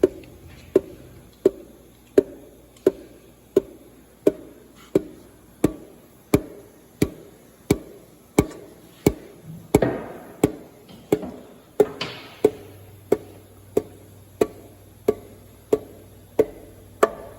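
Light hammer taps on a part of a Chrysler 218 flathead six engine under reassembly, evenly paced at about three every two seconds, some two dozen in all. A brief scraping rustle comes in around the middle.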